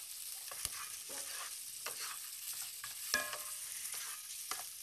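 Chopped onions frying in ghee in a pot: a steady sizzle, with the scattered clicks and scrapes of a spoon stirring them.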